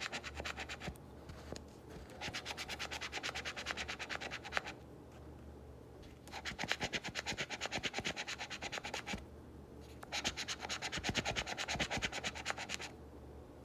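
A coin scraping the latex coating off a paper scratch-off lottery ticket in rapid back-and-forth strokes. It comes in four spells with short pauses between them.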